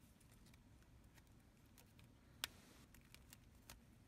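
Faint clicks and taps of small 3D-printed plastic parts being handled while a rubber band is fitted, with one sharper click about two and a half seconds in.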